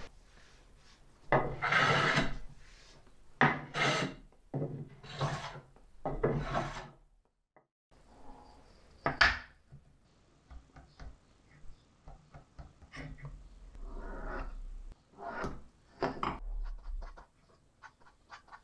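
Wood sliding and rubbing against wood in four separate strokes. After a short break come light scratching and small ticks as a pencil marks plywood and a steel square and ruler are set against it.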